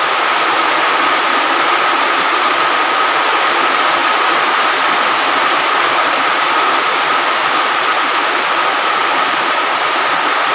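Steady sizzling hiss of cooking oil frying egg-and-sausage rolls in an aluminium 14-hole sostel pan, with a steady high tone running through it.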